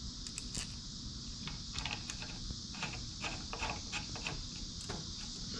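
Small metal clicks and taps of oil-cooler line fittings, 12 mm bolts with washers, being handled and threaded into a small motorcycle-style oil cooler by hand, scattered irregularly, over a steady high-pitched hiss.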